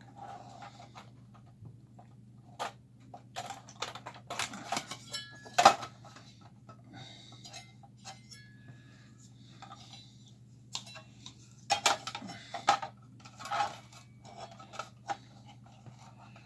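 Irregular metallic clicks and clinks of screws and a screwdriver against the metal chassis as a circuit board is refitted in an opened power amplifier, with one sharper clink about six seconds in and a flurry of them near the end. A low steady hum runs underneath.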